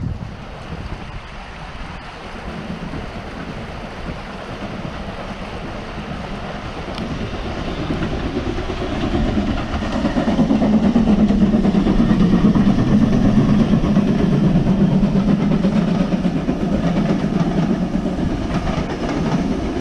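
Steam locomotive hauling a train of carriages approaching and running past, its rumble growing louder until about halfway through and staying loud as the coaches roll by.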